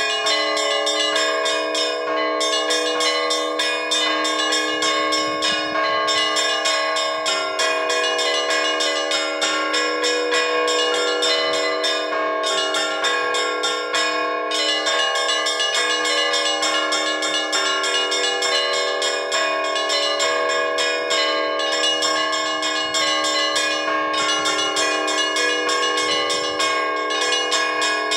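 Orthodox church bells rung together by one bell-ringer for vespers and the all-night vigil. Rapid strikes of the small bells, with short breaks every few seconds, ring over the steady hum of the larger bells.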